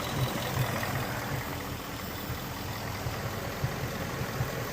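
Ford Mustang GT's 5.0 Coyote V8 idling steadily while it has a cylinder 2 misfire (codes P0302 and P0316).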